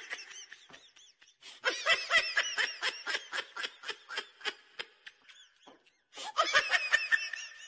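Laughter in quick runs of high-pitched giggles, in three bouts with short pauses between them, the middle bout the longest.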